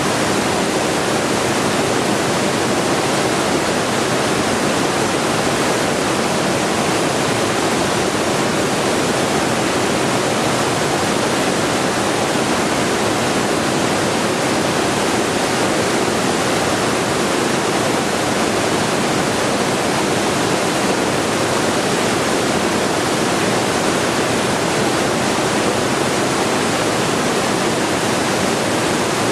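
White noise for sleep: a steady, even hiss spread across the whole range of pitch, unchanging throughout.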